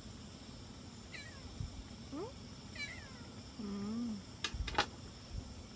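A domestic cat making several short chirping meows, then a lower, wavering meow. Near the end come two sharp clicks, the loudest sounds here.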